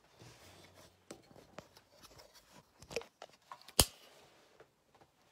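Handling noise: light rustling and scattered small clicks, with one sharp click about four seconds in.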